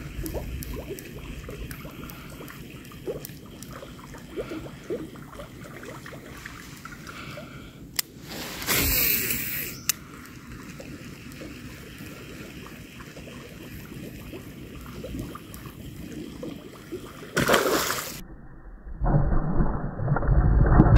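Fishing at a swampy pool: a lure being worked with faint reel ticks, and two brief bursts of splashing on the water about 9 and 17 seconds in. A louder muffled rumble comes in about two seconds before the end.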